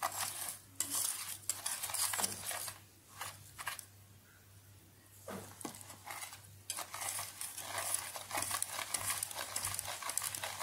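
Wire whisk stirring a wet cocoa-powder and sugar mixture in a metal saucepan, in quick repeated scraping strokes against the pan, with a quieter pause about three to five seconds in.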